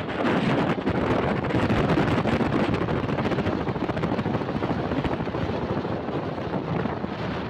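Wind buffeting the microphone of a moving motorcycle, a dense, unsteady rushing, with the bike's engine and road noise mixed in beneath.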